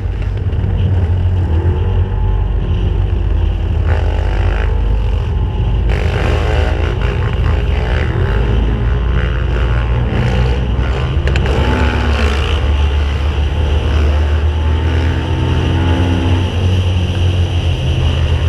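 Off-road vehicle engine running while riding along a paved road, a steady low rumble with its pitch rising and falling as the throttle changes.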